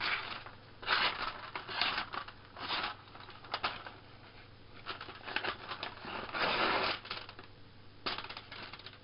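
Paper envelope being slit with a knife and torn, crinkling and rustling in short, irregular bursts; the longest and loudest stretch comes about six and a half seconds in.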